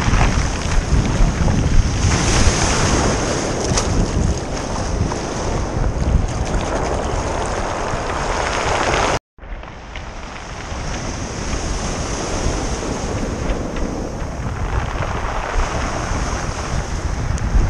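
Sea surf washing up over a pebble beach, with wind buffeting the microphone. The sound drops out completely for a moment about halfway through, then the wind and surf come back.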